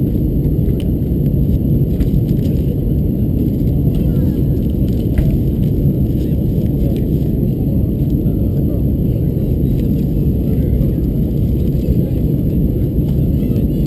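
Steady in-flight cabin roar of an Airbus A321-212 heard from a window seat by the wing: the engines and the airflow over the fuselage make an even, deep rumble with no change in level.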